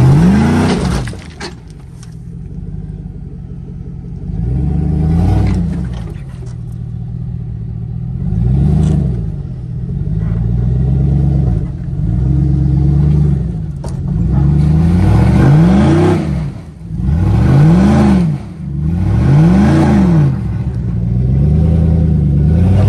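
GMC Yukon's V8 engine revving up and falling back about six times in short bursts as the SUV climbs over large boulders.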